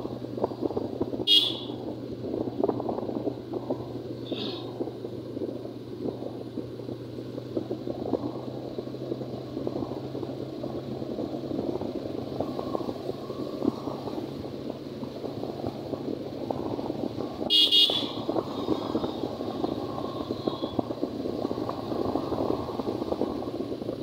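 A vehicle horn beeps three times, briefly about a second in and again, fainter, a few seconds later, then longer and louder about seventeen seconds in, over steady engine and road noise from the moving vehicle.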